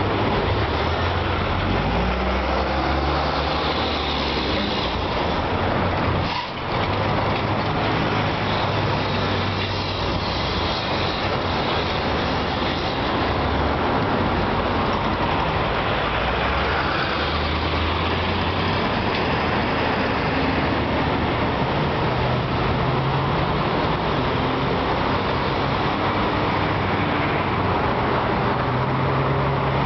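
Rush-hour road traffic: a steady stream of cars and heavier vehicles passing, a continuous hiss of tyres over low engine drone that shifts in pitch as vehicles come and go. The sound briefly dips about six seconds in.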